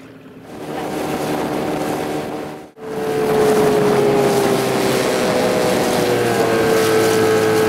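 Outboard motor of a small boat running under way, a steady hum with a rushing noise over it. It breaks off for an instant about three seconds in and comes back louder.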